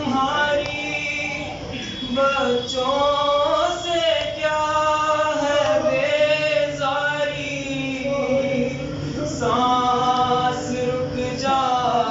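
A man's solo voice chanting a nauha, a Shia elegy of mourning, unaccompanied. It moves in long held notes that bend and waver between phrases.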